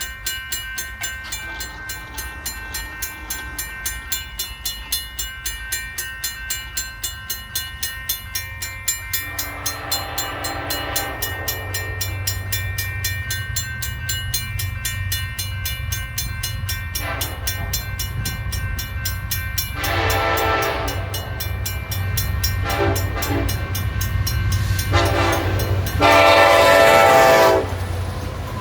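Union Pacific SD70ACe freight locomotive approaching, its diesel rumble growing louder, then sounding its horn in a salute: a series of long and short blasts starting about nine seconds in, the last blast the longest and loudest.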